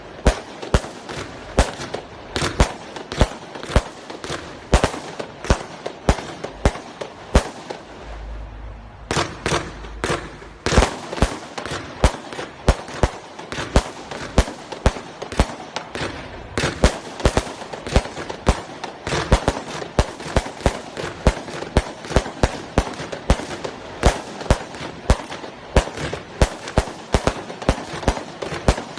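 20 mm, 200-shot compound firework cake firing: sharp reports, two or three a second, over a crackling haze. There is a short lull with a low rumble about eight seconds in, then the firing picks up again.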